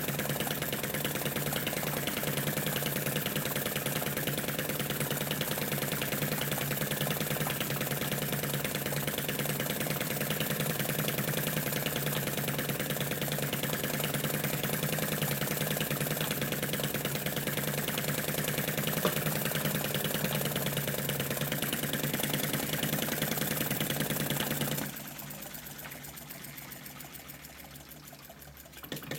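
Model flame eater (vacuum) engine built as a Lanz Bulldog running steadily with a fast, even clatter, belt-driving a model Stuart oil field pump and a small generator. About 25 seconds in the sound drops sharply to a much quieter level.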